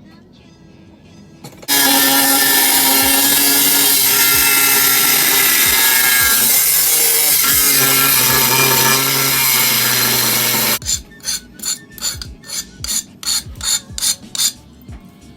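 An angle grinder cutting steel plate runs loudly for about nine seconds, then stops abruptly. A file then rasps the cut steel edge in quick, even strokes, about three a second.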